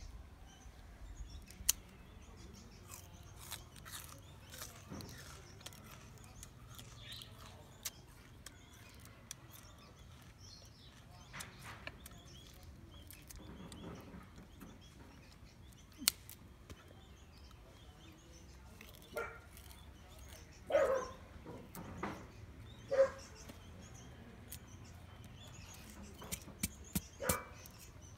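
A few short animal calls in the second half, the loudest two coming about two seconds apart. Near the end there is a quick run of sharp knocks as a cleaver chops into a cane stalk.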